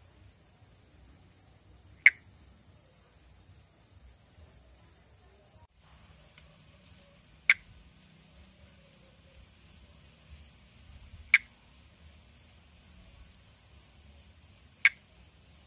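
Pithecopus nordestinus monkey tree frog calling: four single, short click-like notes, one every three to four seconds. Insects trill steadily behind them, and their sound changes abruptly about six seconds in.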